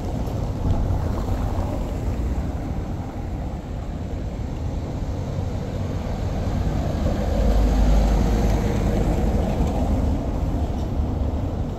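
Low outdoor street rumble, growing louder about seven to nine seconds in.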